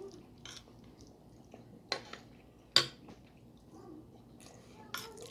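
Cutlery clinking against a plate during eating, about four separate sharp clinks, the loudest a little before halfway through.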